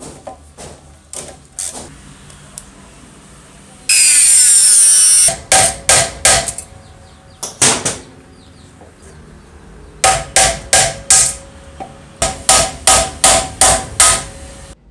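Hammer striking metal in quick runs of sharp taps, about three to four a second, each with a short metallic ring, typical of driving in the small rivets that hold the nameplate on the saw's motor housing. About four seconds in, a loud harsh noise lasts just over a second.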